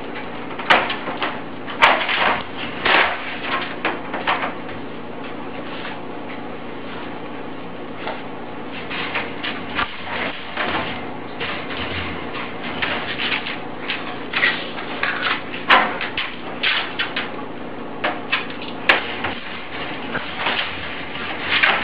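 Metal cage door and its lock rattling and clanking in irregular bursts of knocks as a dog works at the lock with its mouth, over a steady background hum.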